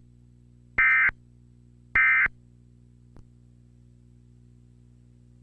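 Emergency Alert System end-of-message data bursts: short, raspy digital tone bursts about a second apart, two heard whole after the tail of a first, marking the end of the broadcast alert. After them comes a faint click, then a steady low hum.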